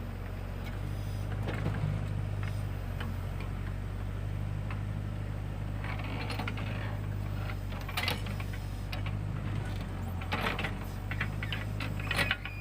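Case 580K backhoe loader's diesel engine running steadily, with scattered metal clanks and rattles from the machine as it works the rear bucket.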